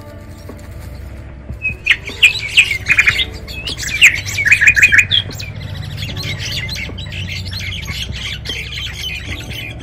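Common mynas fighting on the ground, giving harsh squawks and screeches in loud clusters from about two seconds in, then a rapid, steady chatter of calls.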